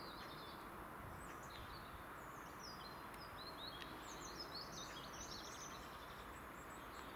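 Small birds chirping and twittering in quick, short high notes, busiest around the middle, over a faint, steady outdoor background noise.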